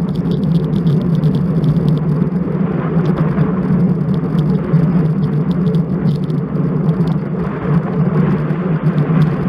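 Riding noise picked up by a bike-mounted action camera: steady wind rushing over the microphone, with many quick rattles and clicks from the mount and bike over the road surface.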